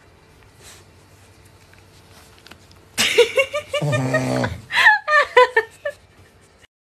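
A person laughing in short rising and falling pulses, mixed with a few words, starting suddenly about three seconds in after a quiet stretch with faint small clicks.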